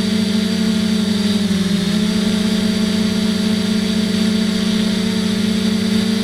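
FPV quadcopter's electric motors and propellers running with a steady whine. The pitch dips briefly about a second and a half in, then holds.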